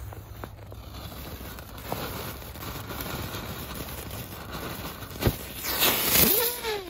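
Dancing butterfly firework fountain burning with a steady spraying hiss, a sharp pop about five seconds in, then a louder surge of hissing and crackling as it spews smoke and sparks. Brief whistling tones falling in pitch near the end.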